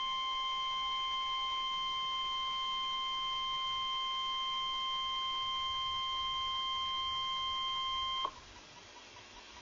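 NOAA Weather Radio 1050 Hz warning alarm tone: a single steady beep held for about eight seconds. It cuts off sharply, leaving faint radio hiss.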